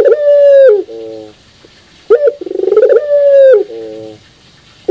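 Puter pelung dove, a domestic ringneck (Barbary) dove kept for its powerful coo, cooing loudly in repeated phrases. Each phrase opens with a short rising note, rolls quickly into one long drawn-out coo that drops away at the end, and is followed by a few short lower notes. A phrase ends about a second in, a full one follows in the middle, and another begins near the end.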